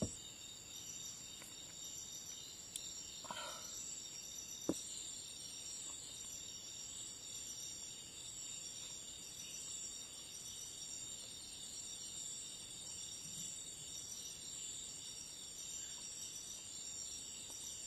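Crickets and other night insects chirping in a faint, steady, high-pitched chorus, with a couple of small clicks a few seconds in.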